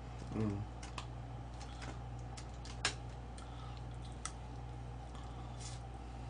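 Faint, scattered clicks and taps of wooden chopsticks against a foil-lined takeout box as chicken pieces are picked up, the sharpest click a little before three seconds in. A short hum from the eater comes about half a second in, over a low steady electrical hum.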